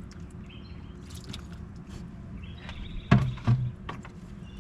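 Light clicks, then two sharp knocks about three seconds in, from tools and parts being handled and set down.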